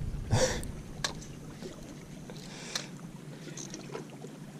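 Open-air boat ambience: a steady wash of wind and water, with a brief rustle just under a second in and a few light clicks.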